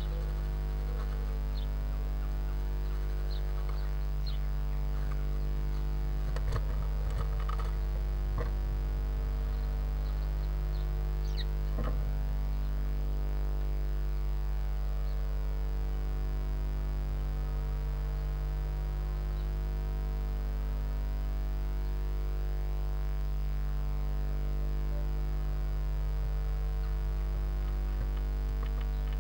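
Steady electrical mains hum on the nest-box camera's sound, with faint scratching and rustling of a blue tit in the box, clustered about six to eight seconds in and again at twelve seconds, and a few faint high peeps.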